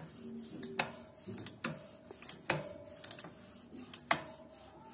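Irregular sharp metallic clicks from a bicycle's rear cassette sprockets and chain being turned while cleaned cog by cog, several clicks leaving a brief ringing tone.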